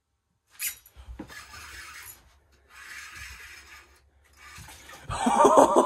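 Rubbing, rasping scrapes in three bursts of about a second each, then a man's loud, excited voice breaking in about five seconds in.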